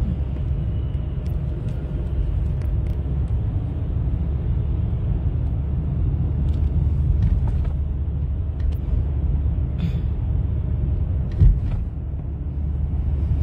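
Steady low rumble of engine and tyre noise inside a moving car's cabin in city traffic, with a single sharp thump about eleven and a half seconds in.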